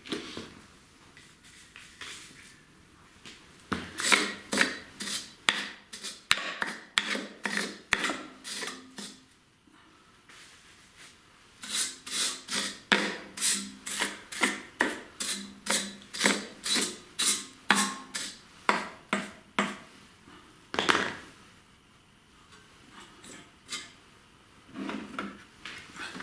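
A rag rubbing the plastic recoil starter cover in quick back-and-forth wiping strokes, about two a second. The strokes come in two long runs with a short pause between, then a few scattered strokes near the end.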